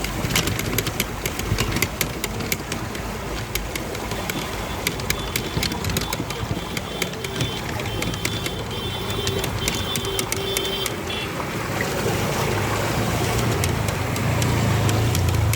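Motor vehicle engines running in a flooded street, with a deeper engine rumble growing louder near the end. Many sharp ticks are heard, and a steady high whine holds for several seconds in the middle.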